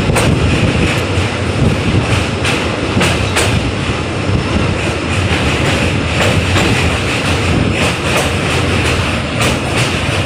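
Train running across a steel truss bridge, heard from the side of a moving coach: a loud, continuous rumble of wheels on rails with irregular sharp clacks over the rail joints.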